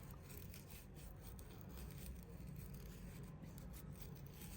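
Faint brushing as a small brush sweeps lint off an industrial sewing machine, over a low steady hum.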